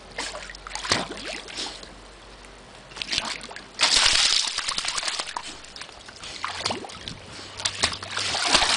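A dog splashing and sloshing while swimming in a pool and lunging at a skimmer net on a pole. A loud splash comes about four seconds in, with more splashing near the end.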